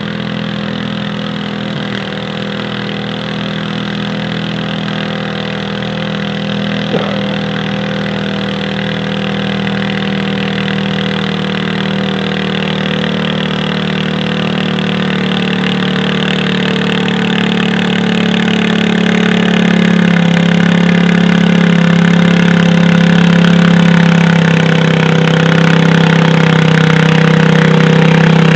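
Garden tractor engine running steadily under load as it pulls a weight-transfer sled down the track, growing louder as it comes closer. The engine note drops a little about two-thirds of the way through.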